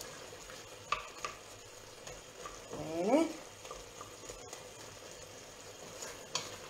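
Romanesco broccoli cooking in a steel pot on a gas stove with a steady sizzle, stirred with a utensil that knocks lightly against the pot a few times. About three seconds in there is a short rising tone.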